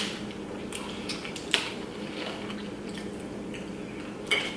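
Close-miked eating sounds: pizza being bitten and chewed, with a few sharp clicks, the sharpest about a second and a half in and another near the end, over a steady low hum.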